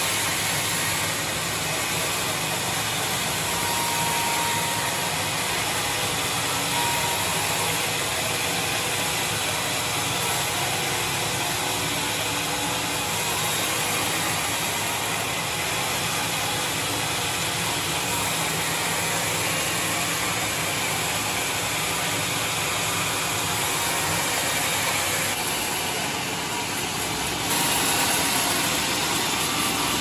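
Large band sawmill running steadily, giving a continuous even mechanical noise, which rises slightly in level near the end.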